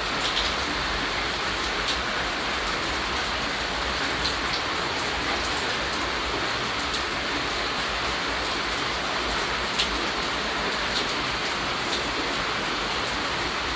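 Steady rain falling: an even hiss of rainfall with scattered sharper ticks of individual raindrops.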